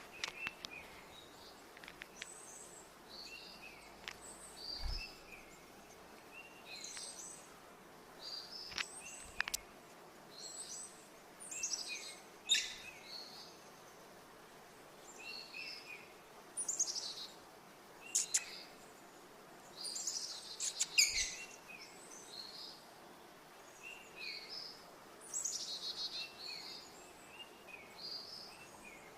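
Small pet parrots, a budgie and a lovebird, chirping in short high calls that come in little clusters every second or two. A few sharp taps or clicks sound among the calls.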